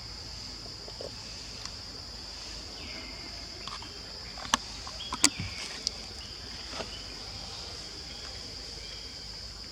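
Steady high-pitched drone of insects, with a few short downward-sliding chirps. Several sharp clicks or knocks come near the middle, the two loudest about four and a half and five seconds in.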